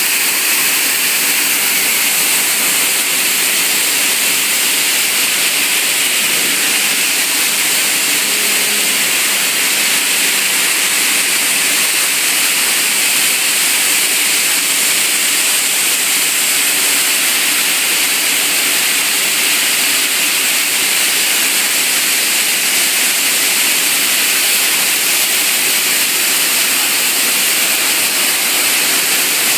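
Waste-plastic washing line running: a steady, loud rushing hiss that does not change.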